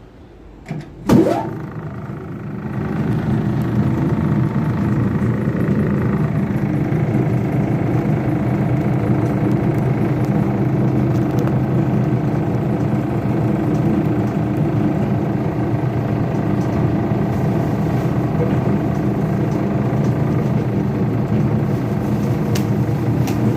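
Electric paper shredder switching on with a click about a second in, its motor rising in pitch and then running with a steady, loud hum as it shreds a batch of waste paper.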